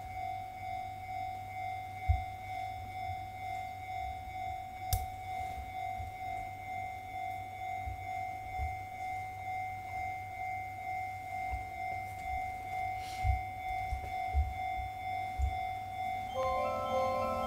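A steady electronic tone with a gentle regular pulse, broken by a few dull knocks. A chime of several notes starts near the end.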